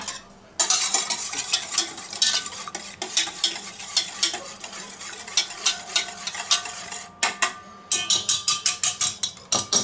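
Wire whisk beating eggs and milk in a stainless steel bowl, the wires rapidly clicking and scraping against the metal. After a short pause near the end, a last run of quick, even strokes, about six a second.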